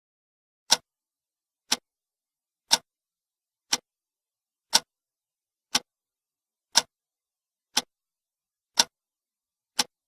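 Ten sharp ticks, evenly spaced one second apart, with complete silence between them.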